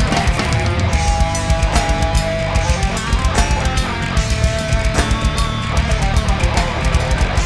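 A rock band playing live: guitar holding notes over heavy bass and drums, with a steady beat of drum hits.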